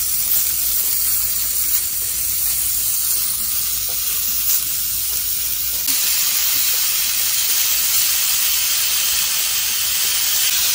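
Seasoned beef steak bites sizzling in hot olive oil in a cast iron pan as pieces are laid in one by one; the sizzle is steady and grows fuller about six seconds in as more meat goes into the pan.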